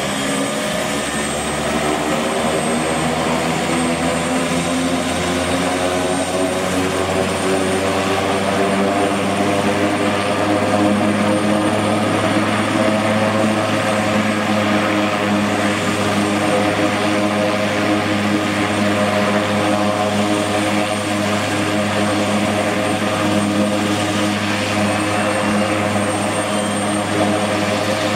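Eurocopter AS332L1 Super Puma helicopter running on the ground during start-up: its twin turboshaft engines whine steadily while the main and tail rotors turn. The pitch rises over the first couple of seconds, then holds steady.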